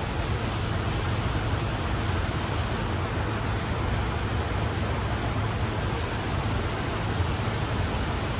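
Steady rushing noise with a low hum underneath, with no gunshots.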